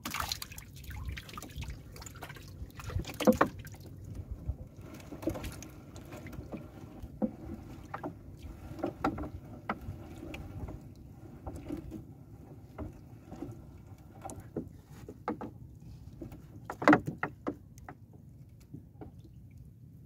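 A fishing net being hauled and handled in a wooden outrigger boat: water trickles off the wet net, with irregular knocks and clicks against the hull. Two knocks stand out as louder, about three seconds in and about three seconds before the end.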